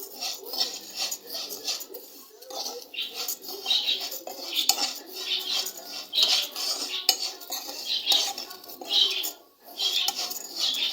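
A spoon stirring and scraping vermicelli around a pan as the noodles toast in ghee, with irregular clinks and scrapes and a brief pause near the end.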